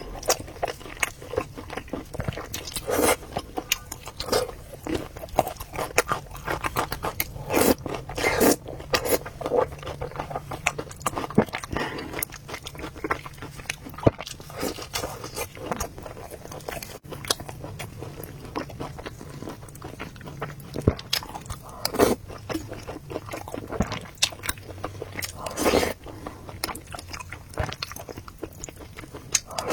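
A person eating braised pork knuckle with rice soup: irregular wet chewing and biting sounds, with a few louder clicks scattered through.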